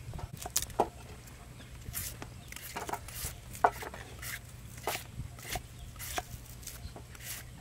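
Knife chopping red onion on a wooden chopping block, then a vegetable peeler scraping strips off a carrot: short, irregular knocks and scrapes, with a steady low hum underneath.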